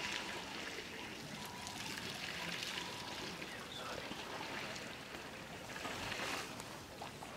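Water trickling and splashing as elephants drink.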